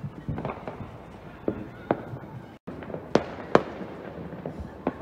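Fireworks going off: an irregular string of bangs and pops, the two loudest a little over three seconds in. The sound cuts out for an instant just before them.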